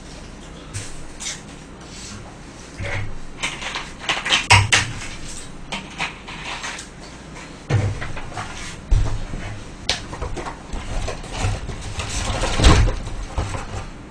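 Cardboard takeout chicken boxes and the paper in them being handled on a table: rustling and scraping, with several dull knocks, the loudest near the end.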